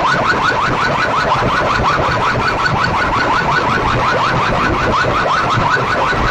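An electronic alarm-like chirp, rising in pitch and repeating several times a second, played very loudly through stacks of horn loudspeakers on a DJ sound-box rig.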